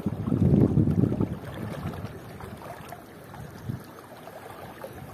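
River water rushing and sloshing around someone wading mid-stream, with a low rumble of wind on the microphone; loudest in the first second and a half, then a steadier rush.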